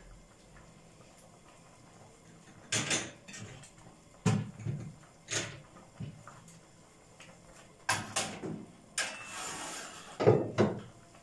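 Several separate knocks and clatters of glass dessert bowls being handled and set down on the stovetop, with a short scrape just before the last and loudest knock near the end.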